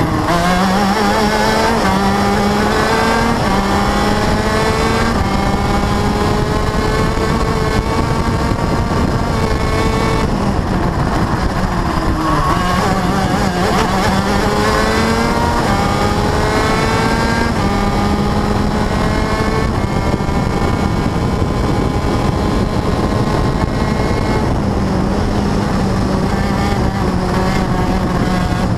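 Onboard engine of a race vehicle on track at high revs, its pitch climbing repeatedly under acceleration, dropping back about twelve seconds in and climbing again, over a steady rush of wind and road noise.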